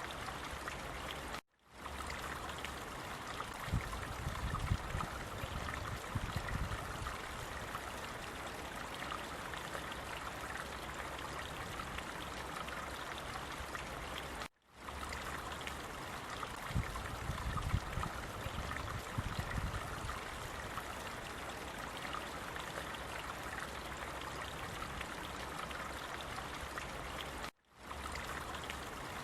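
Steady rush of running water from a stream, with some low gurgling rumbles. It cuts out completely for a split second three times, about thirteen seconds apart.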